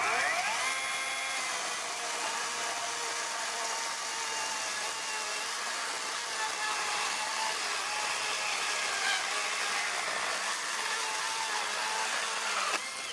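Greenworks Pro 60V brushless cordless chainsaw with an 18-inch bar, whining up to speed and then cutting through a 6x6 pressure-treated wooden post with no pressure on it, just the saw's own weight doing the work. The motor's pitch holds fairly steady through the cut, and the saw stops near the end.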